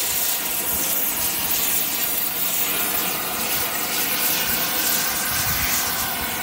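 Oxy-acetylene rosebud heating torch burning with a steady rushing hiss, heating the steel patch plate so it can be bent to the boiler's curve.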